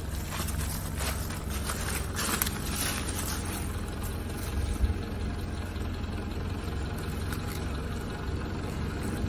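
A steady low engine hum, like a vehicle idling. Over it, a few brief rustles of dry leaves and bracken in the first half as a mushroom is picked.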